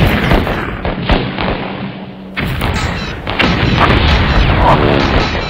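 Battle sound effects: shell explosions booming amid gunfire, dense and continuous, with a sudden jump in loudness about two and a half seconds in.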